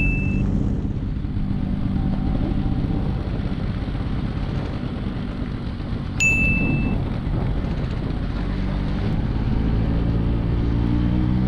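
Bajaj Chetak scooter engine running steadily under way, with two short horn beeps: one right at the start and one about six seconds in.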